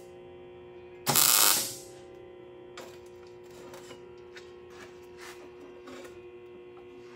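MIG welder (Millermatic 250) making a short tack weld on exhaust tubing about a second in: a brief crackling sizzle of under a second. After it come a few faint clicks over a steady hum.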